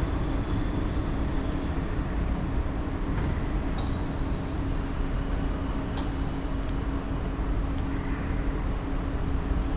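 Steady low background rumble with a constant low hum underneath, and a few faint clicks.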